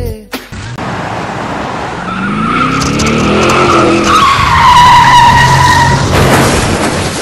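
A motor vehicle's engine revs up as it comes on, then its tyres screech in a long skid under hard braking, loudest about five seconds in.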